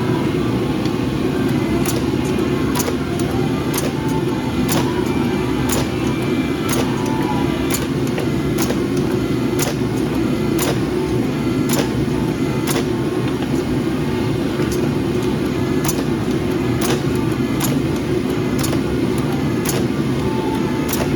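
Steady loud roar of forging equipment, with a sharp tick about once a second over it.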